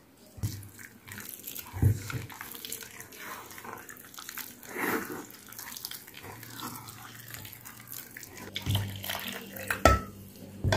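Hands squelching and kneading a wet flour-and-jaggery-syrup mixture in a stainless steel pot, with scattered clicks against the metal. A sharp knock about two seconds in, and another near the end that rings briefly.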